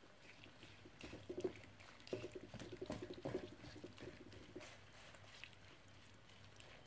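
Wooden spatula stirring and turning beef slices frying in oil in a nonstick wok: a run of light scrapes and taps against the pan, quieter near the end, over a soft sizzle.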